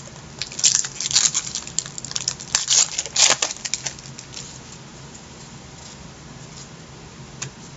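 Trading cards and their pack wrapper being handled: a flurry of crinkles and clicks over the first few seconds, then only faint hiss.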